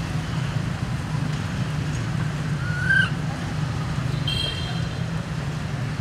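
Steady low rumble of road traffic, with a short high chirp about three seconds in and a brief high squeak a little after four seconds.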